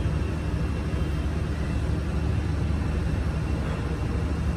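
Steady low rumble and hum of background noise, without any distinct sounds standing out.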